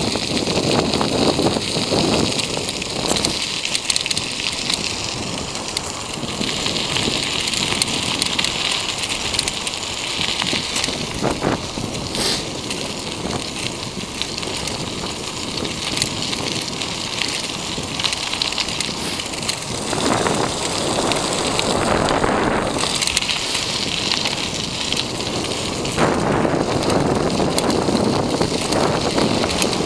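Wind buffeting a moving camera's microphone over the steady hiss of wheels rolling fast on asphalt, with louder rumbling gusts toward the end.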